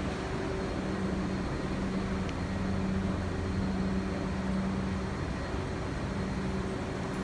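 Steady hum of a New York subway train standing at the platform, its equipment running with a constant low drone.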